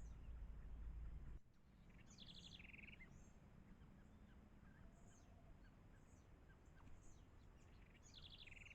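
Faint birdsong. A short phrase of quick high notes ending in a lower buzzy note comes about two seconds in and again near the end, with scattered thin high chirps in between. A low rumble drops away about a second and a half in.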